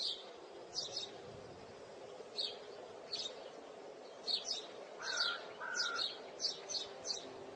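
Small birds chirping: short high chirps every half second or so, coming thicker after about four seconds, with two lower whistled notes about five seconds in, over a faint steady background hum.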